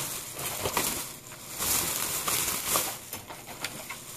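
Thin plastic shopping bag rustling and crinkling on and off as hands dig through it and pull it open.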